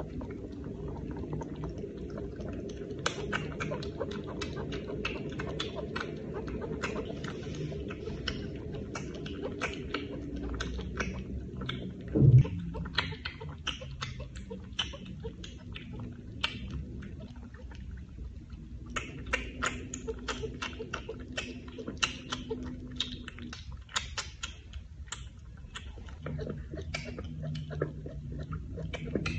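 A cat suckling milk from a small nursing bottle's teat: quick wet sucking clicks, a couple or so a second, over a steady low rumble, with one loud bump about twelve seconds in.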